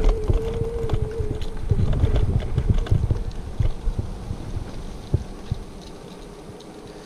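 Hover1 Edge electric scooter rolling over a rough, cracked concrete sidewalk: its small wheels rumble and clatter over the slab joints and cracks, with a thin motor whine for about the first second. About two-thirds of the way in it rolls onto smooth asphalt, and the rumble drops to a much quieter roll.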